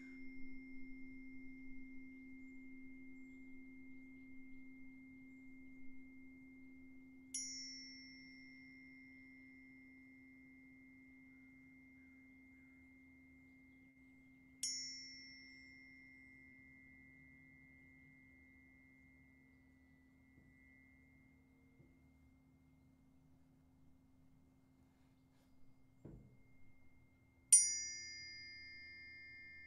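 A pair of tuning forks struck three times, about seven, fifteen and twenty-seven seconds in, each strike a bright ping followed by a long, pure, slowly fading ring. The last strike is the loudest and sets two close high tones ringing together. A lower steady tone fades slowly underneath, and a soft bump comes just before the last strike.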